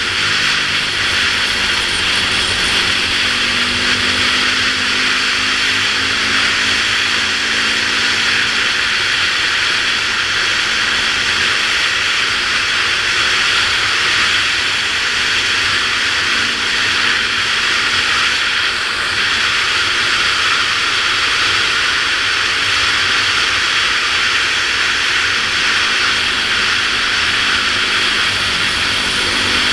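Steady wind rushing over a helmet-mounted camera at road speed, with a dirt bike's engine running steadily underneath, holding a near-constant pitch while cruising.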